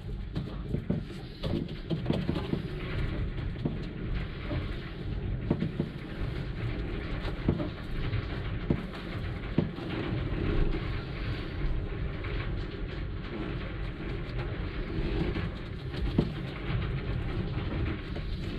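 A small laminating roller worked over epoxy-wetted fibreglass mat on a boat's interior panel: a continuous low rumble with irregular knocks as the mat is consolidated.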